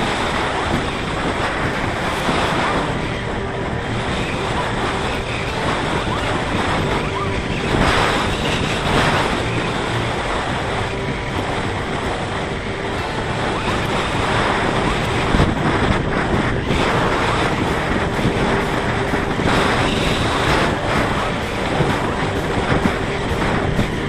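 Steady rush of wind noise over a microphone on a Parrot Disco fixed-wing drone in flight, swelling and easing a little, with a faint steady hum underneath.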